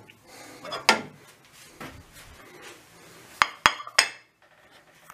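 China plate clinking against a stone counter as it is set down: a knock about a second in, then three sharp, ringing clinks close together near the end.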